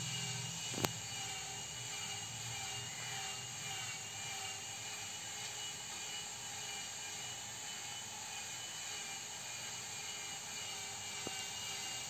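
Steady faint whirring hum with a single sharp click about a second in.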